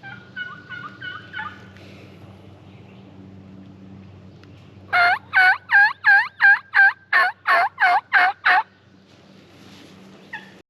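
Wild turkey yelping: a short, faint run of about five yelps at the start, then a loud, close run of about eleven evenly spaced yelps, about three a second, a few seconds in. The loud run is typical of a hunter's hen-yelp call made to draw a hen in.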